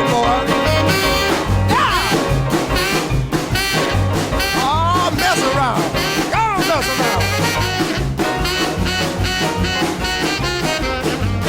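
Upbeat swing-style rhythm-and-blues music with no singing: horns play phrases that bend up and down over a steady bass and drum beat.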